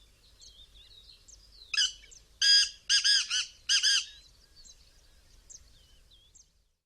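Black francolin giving one loud call of about five clipped notes in quick succession, about two seconds in. Other small birds chirp faintly throughout.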